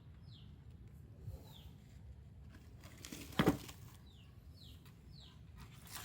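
A small bird calling in the background with short falling chirps, repeated at irregular gaps. A single knock with a brief rustle comes a little past halfway, as wood or the saw is handled.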